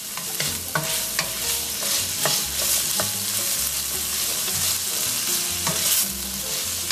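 Black beans and corn sizzling in an oiled stainless steel skillet while a spatula stirs them, with frequent light clicks and scrapes of the spatula against the pan.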